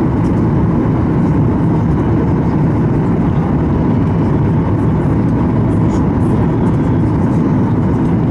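Steady cabin noise inside a Boeing 737-800 on approach: a low rumble from its CFM56 engines and the air rushing past the fuselage and extended flaps, even in level throughout.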